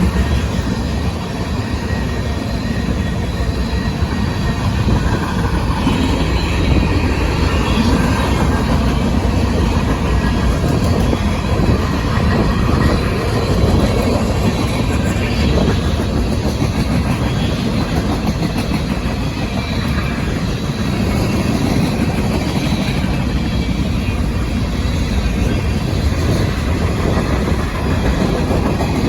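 A train going past, its railroad cars rolling along the track with a steady, even sound and no horn.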